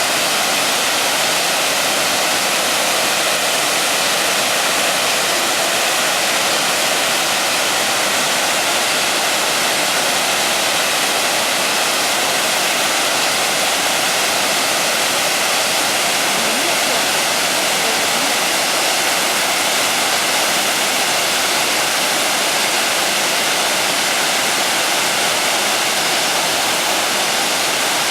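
Waterfall in flood, swollen with typhoon rain: a loud, steady, unbroken rush of falling water.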